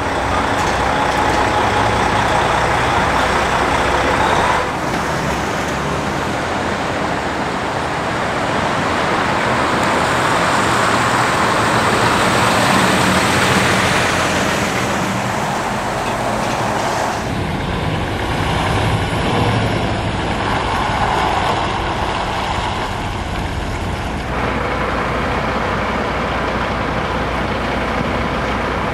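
Heavy MAN prime movers with diesel engines running, driving past while hauling race-car transporter trailers, with engine and tyre noise, in a few clips joined one after another so the sound changes abruptly several times.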